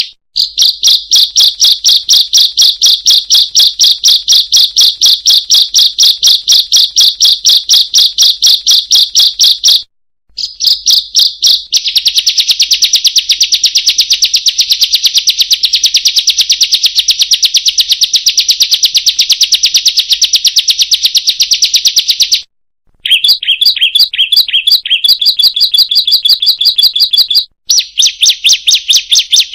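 Ciblek (prinia) song: long runs of rapid, high, sharp chirps repeated without let-up, broken by brief pauses about ten seconds in, after about twenty-two seconds, and near the end. It is a lure recording for teaching caged birds their song.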